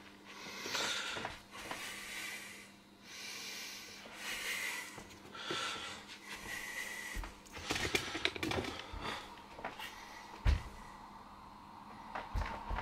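Inflatable vinyl pool-toy hat rubbing and brushing close against the microphone, in hissy passes about a second long with short squeaks. After that come scattered clicks and a few dull knocks as the hat is handled and the man moves back.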